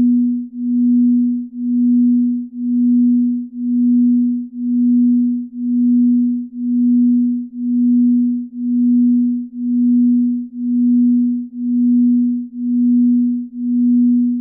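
Binaural-beat sleep tone: a single low, pure steady tone that swells and fades evenly about once a second.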